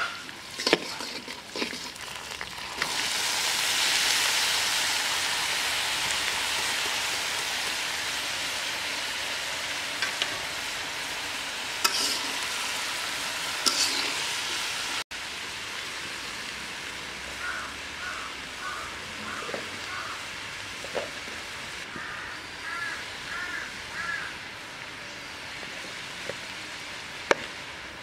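Vegetables sizzling in hot oil in a large iron kadai while a metal spatula stirs and scrapes against the pan. The hiss swells loud about three seconds in, then settles to a softer sizzle.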